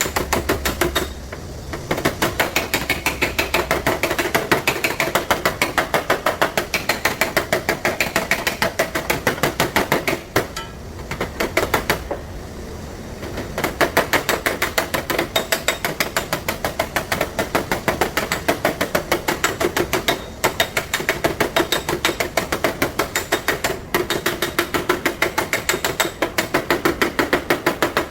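Body hammer tapping rapidly and steadily on a car fender's sheet metal, panel-beating out the damage, with a few short pauses between runs of blows.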